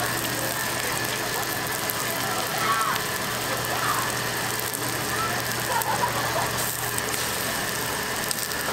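Steady background noise of a busy street-food stall, with a constant low hum and faint voices now and then.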